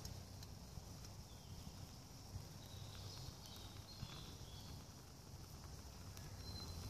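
A lighter flicked a few times with faint sharp clicks while held to birch-bark tinder in the top of a wood gas stove, the top-lighting of the stove, over a low steady rumble.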